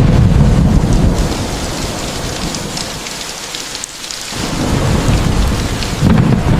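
Heavy rain hissing steadily with scattered drop ticks, under a low thunder rumble that fades out about halfway through and then swells again.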